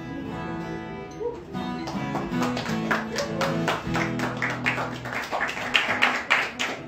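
Acoustic guitar playing: ringing plucked notes and chords at first, then a fast run of sharp, evenly spaced strokes, about four or five a second.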